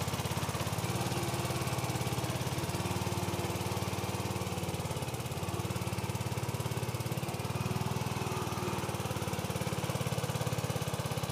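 Sears garden tractor's Craftsman gasoline engine running steadily under load as it pulls a moldboard plow through soil, its pitch sagging briefly a couple of times around the middle.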